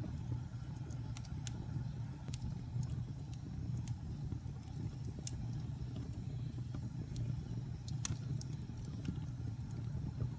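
Wood fire burning in a fireplace: a steady low rumble of flame with scattered crackles and pops, one sharper pop about eight seconds in.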